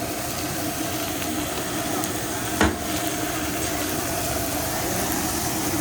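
Food sizzling steadily on a hibachi griddle, with one sharp knock about two and a half seconds in.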